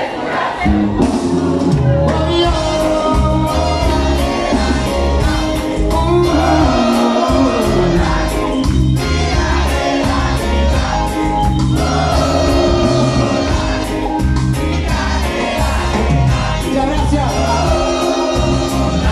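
Live reggae band playing, with sung vocals over a heavy bass line and steady cymbal ticks, recorded from among the audience.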